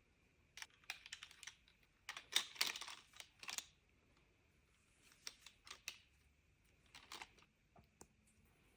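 Small plastic LEGO pieces clicking and rattling as they are handled and snapped together, in quiet bursts of clicks, busiest about two to four seconds in.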